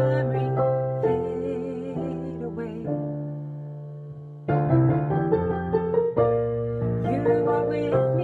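Slow, soft piano chords playing an instrumental interlude to a ballad, with a held sung note wavering and trailing off in the first couple of seconds. The chords die away to a low point about four seconds in, then a new phrase starts louder.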